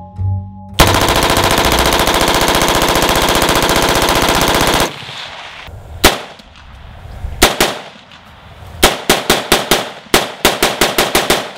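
AR-style rifle fire: one unbroken fully automatic burst of about four seconds. It is followed by two single shots, then quick strings of rapid semi-automatic shots in the second half.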